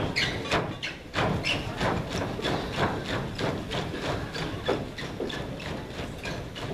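A troupe of dancers in sneakers jumping in unison, their landings on the stage floor making a steady rhythm of thuds, about two to three a second.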